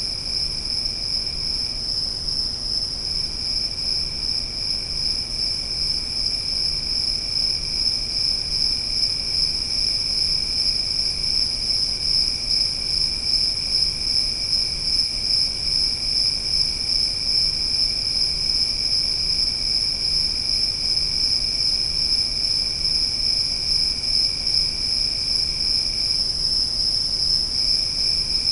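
Forest insect chorus: a steady, high-pitched trilling, with a second, lower trill that drops out briefly twice, over a low rumble.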